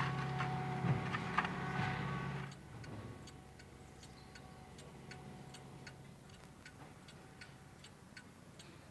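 A steady low hum with a few knocks cuts off about two and a half seconds in. It gives way to an ornate gilt mantel clock ticking steadily, about two ticks a second.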